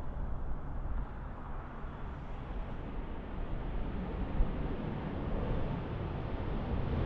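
Airbus A320neo jet airliner rolling out on the runway just after touchdown: a steady low rumble of engine and runway noise, rising a little near the end.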